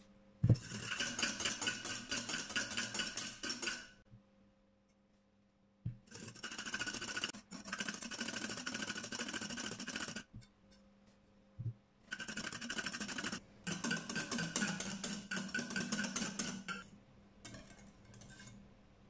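Wire whisk beating egg whites and sugar against a glass bowl, a fast clatter of the wires on the glass. It comes in three bouts with short pauses between them as the whites foam up into meringue.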